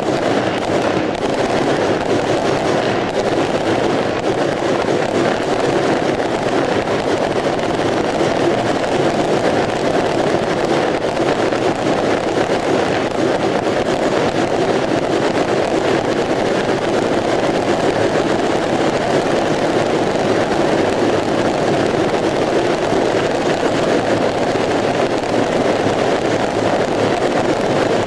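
Taiwanese beehive fireworks (蜂炮) going off: a tower of small bottle rockets and firecrackers firing in a dense, unbroken barrage that holds steady throughout.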